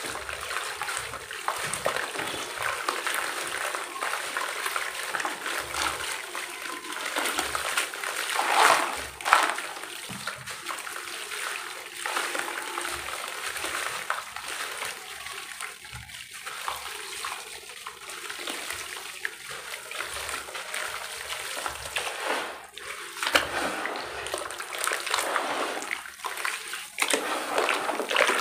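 Blocks of dry roasted dirt crumbled by hand into a basin of water: a steady crackle and patter of crumbs and dust falling and splashing into the water, louder for a moment about nine seconds in. Near the end, hands slosh through the thick muddy water.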